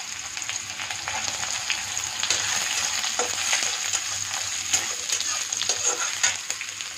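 Chopped onions sizzling in hot oil in a kadhai, being fried toward brown, while a metal spatula stirs them and scrapes and clicks against the pan, with a few sharper scrapes in the second half.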